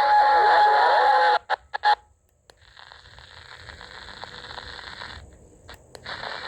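CB radio on channel 11: a loud transmission of warbling, gliding tones over a steady whistle cuts off about a second and a half in, followed by a few short pops. After a brief silence the receiver opens up on steady band hiss, with a short drop-out and a couple of clicks near the end.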